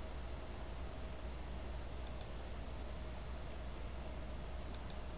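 Computer mouse clicking, two quick double-clicks: one about two seconds in and one near the end, over a steady low electrical hum.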